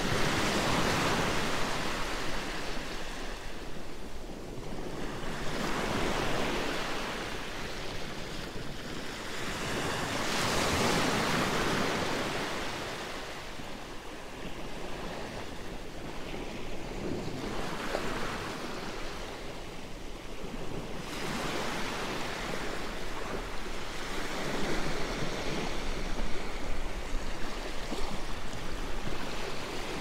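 Gentle sea waves breaking and washing up a sandy, rocky shore, the rush of surf swelling and fading every five seconds or so.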